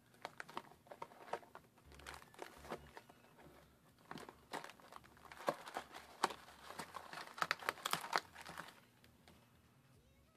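Trading-card booster box being unwrapped and opened by hand: irregular crinkling and tearing of packaging, which stops near the end.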